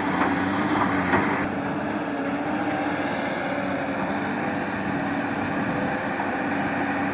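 Heavy diesel construction machinery running steadily, its engine drone holding an even pitch, with a change in tone about a second and a half in.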